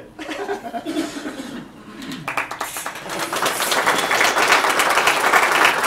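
Audience applauding, starting about two seconds in and building to a steady loud clatter of many hands; a few voices are heard before it starts.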